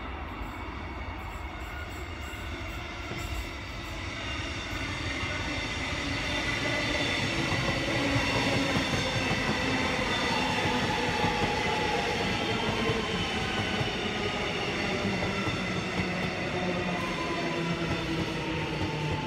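A train moving through the station, getting louder over the first several seconds, with a steady rumble under several high whining tones that slowly fall in pitch as it slows.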